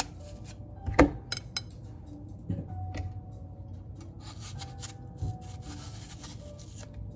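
Kitchen handling sounds during food preparation: a sharp knock about a second in, a few lighter clicks, then a stretch of rubbing or scraping, under soft background music.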